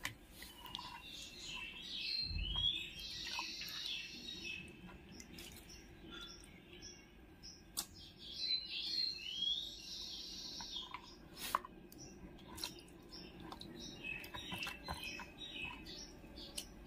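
A songbird singing in three spells of quick chirping phrases, with a few faint sharp clicks in between.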